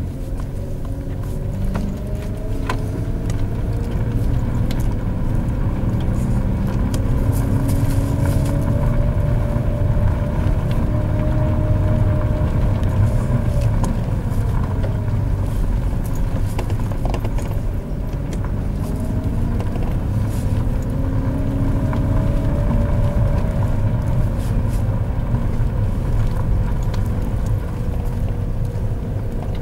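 Opel Astra Coupe driving slowly, heard from inside the cabin: a steady low rumble under an engine note that climbs gradually, drops off about halfway through, then climbs and eases again.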